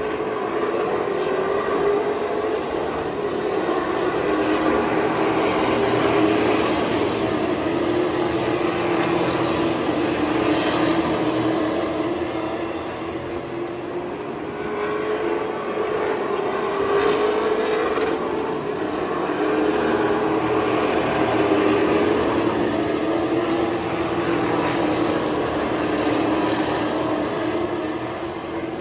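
A field of Thunder Car race cars running laps on a short oval, many engines together. The engine note rises and falls, and the sound swells and eases several times as the pack comes around.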